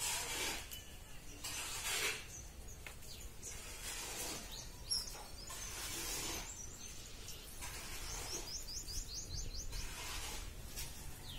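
Small birds chirping, with a quick run of about eight rising chirps near the end, over recurring swells of hiss-like noise.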